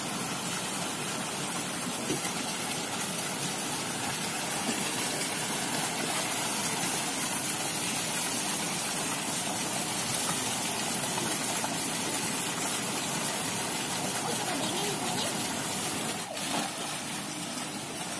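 Steady rushing of water spouts pouring from a wall into a shallow pool, with a child's splashing as he slides in and wades through the water.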